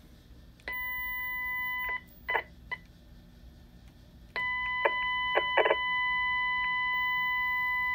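Steady tone with overtones over a low hum, coming through a Nagoya mobile radio's speaker as it receives the keyed-up Baofeng UV-5R: noise from the CM108 sound fob's processor carried into the transmitted audio. It sounds for about a second, cuts off with a few short crackles, then comes back about four seconds in and holds.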